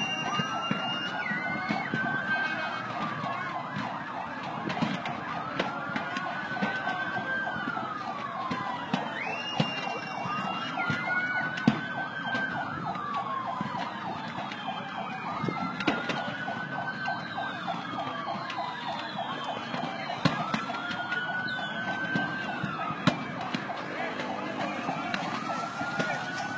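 Emergency vehicle siren in a slow wail, each cycle rising, holding and falling, repeating about every five seconds, with scattered sharp pops over a steady background rumble.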